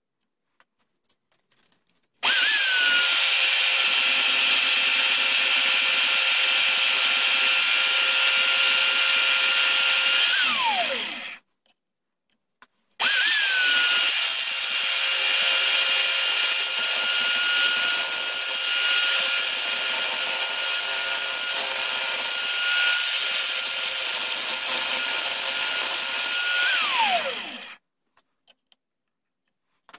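Electric drill driving a homemade mini lathe, run twice: the motor spins up to a steady whine, runs about eight seconds, then winds down and stops, and after a short pause runs again for about fourteen seconds. A hand-held chisel scrapes and cuts the spinning horn blank, rough-turning it into a ramrod tip.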